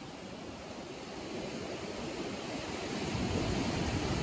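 Rough sea surf breaking and washing over rocks, a steady rush that swells louder about three seconds in.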